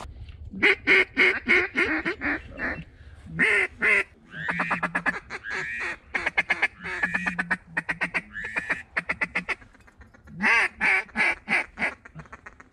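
Mallard duck call blown close by, imitating a hen mallard: loud sequences of short quacks, several runs in a row with brief pauses, some runs quicker and more clipped than others, used to bring circling ducks in.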